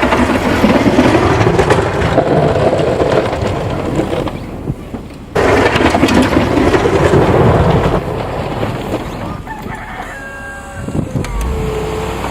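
A loud, steady rushing noise fills most of the clip, with an abrupt break about five seconds in. Near the end a rooster crows once, its call falling in pitch at the close.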